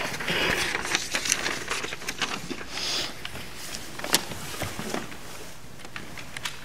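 Camera handling noise: rustling and irregular clicks and knocks as the camcorder is gripped and moved about, busiest in the first half, with one sharp knock about four seconds in.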